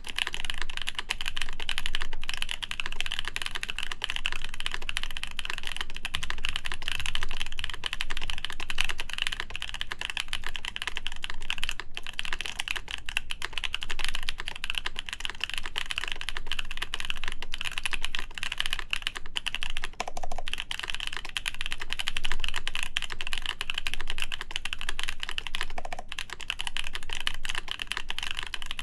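Continuous fast typing on a Haytco CAKE60 mechanical keyboard with lubed Epsilon switches in a full acrylic plate and GMK keycaps: a dense, steady stream of keystroke clacks with no pauses.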